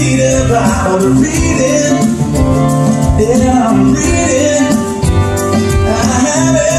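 Men singing a country song live, accompanied by two strummed acoustic guitars with a steady rhythm.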